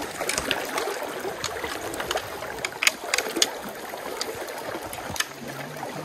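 Stream water rushing and splashing close by, with many scattered sharp clicks and splashes.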